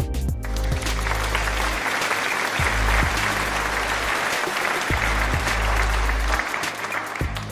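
Background music with a dense crackling hiss laid over it, starting about half a second in and stopping shortly before the end.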